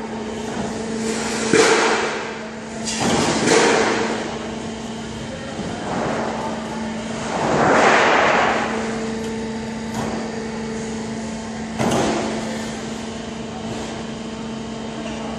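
CNC sheet-metal folding machine running with a steady hum, with clanks of steel sheet being handled and folded: a few knocks in the first few seconds, a longer rushing swell about eight seconds in, and a sharp knock near twelve seconds.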